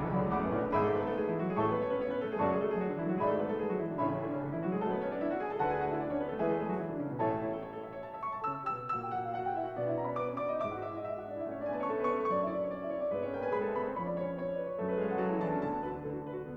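Background music: a piano-led classical-style instrumental piece with moving melodic lines.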